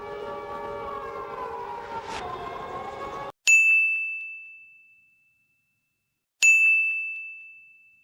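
Alarm siren with several tones, falling slowly in pitch as it winds down and cutting off about three seconds in. Two single high chimes follow, about three seconds apart, each ringing out and fading over a second or so.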